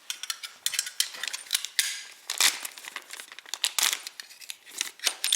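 Plastic packaging crinkling and rustling in the hands in irregular bursts, as a new sump plug is looked over and unwrapped.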